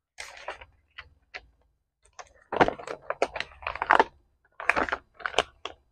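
Irregular light clicks and taps from hands handling small objects, faint at first and busiest over the last few seconds.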